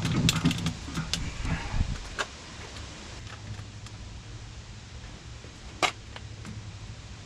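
Rubber hydraulic hose being pulled through a tight bend in a tractor loader mount, scraping and knocking against the metal for the first two seconds. After that a steady low hum, with one sharp click about six seconds in.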